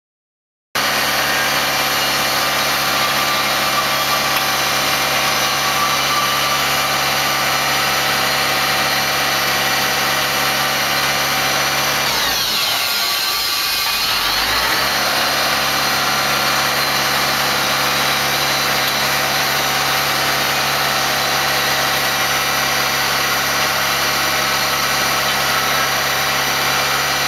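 Forklift engine running steadily while the rotating paper roll clamp attachment is worked. A little before halfway, its pitch dips and comes back up over a few seconds.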